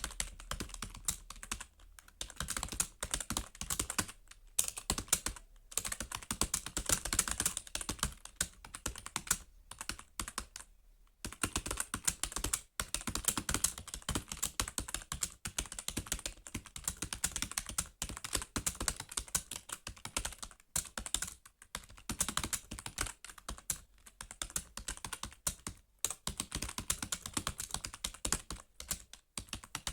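Computer keyboard being typed on fast and continuously, a dense stream of key clicks broken by a few brief pauses, the longest about a second long a little before the midpoint.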